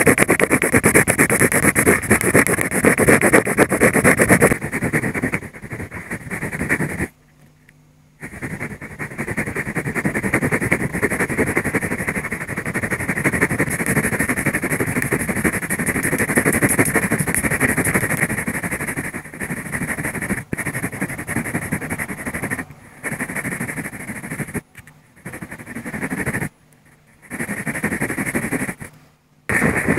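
Pencil lead scratching on paper as a drawing is shaded with quick strokes, a dense scratchy hiss that stops abruptly a few times when the pencil lifts.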